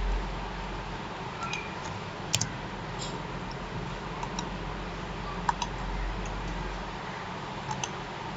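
Computer keyboard keystrokes and mouse clicks: a scattering of separate short taps, the sharpest about two and a half and five and a half seconds in, over a steady low hum.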